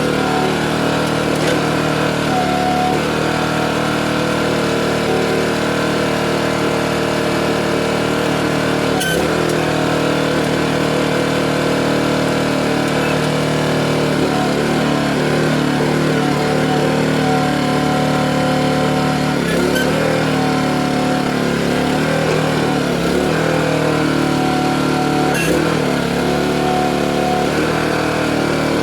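Gas engine of a Harbor Freight towable backhoe running steadily while it digs a post hole. Its pitch wavers under load partway through, and there are three sharp knocks.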